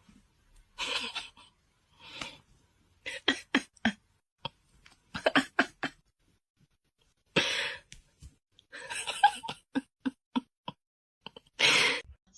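A person laughing in short bursts: breathy exhales and quick runs of giggles, with short pauses between them.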